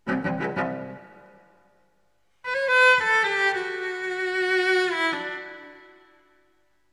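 Soundtrack music on bowed string instruments. A short chord with a few quick repeated strokes dies away, and after a brief pause a held note steps down in pitch and fades out.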